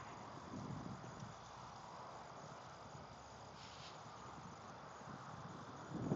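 Faint steady chirring of field insects, with low rumbling of wind on the microphone in the first second or so.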